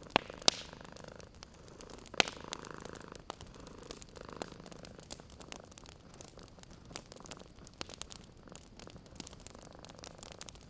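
Cat purring in slow, even swells over a wood fire crackling, with scattered sharp pops: two loud pops right at the start and another about two seconds in.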